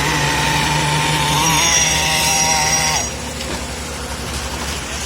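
Diesel engine of a concrete mixer pump running steadily with a fast low pulse, with a high whine over it that dips and stops about three seconds in, leaving the engine running a little quieter.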